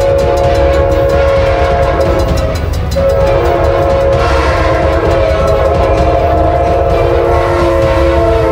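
Train horn sounding a long chord, then a second long blast starting about three seconds in, over the low rumble of the running train.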